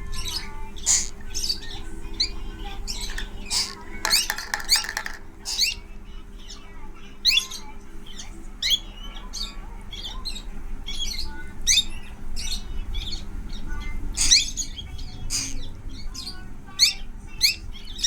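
Baby parrot squawking and chirping while being hand-fed: a string of short, high, rising calls at irregular intervals, with a longer raspy call about four seconds in, over a steady low hum.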